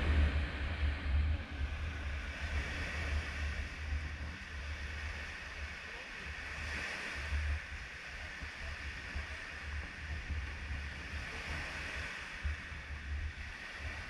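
Small waves washing and breaking on a sandy shore, under gusts of wind buffeting the microphone.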